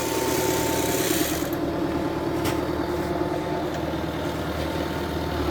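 An engine idling steadily with a low hum. A high hiss over it drops away about one and a half seconds in.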